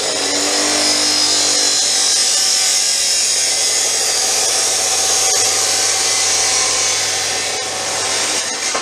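DeWalt abrasive chop saw cutting through steel exhaust pipe: a loud, steady grinding shriek that cuts off near the end.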